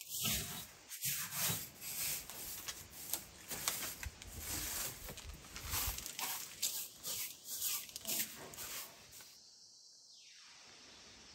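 Straw broom sweeping wooden floorboards in quick, repeated brushing strokes. The strokes stop about nine seconds in.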